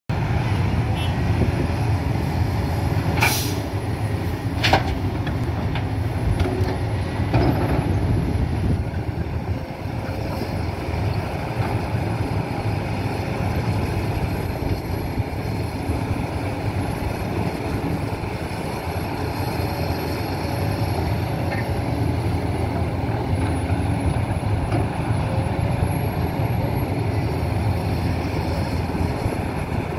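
Heavy diesel excavators and dump trucks running together in a steady low rumble, with a few sharp knocks or bangs in the first eight seconds.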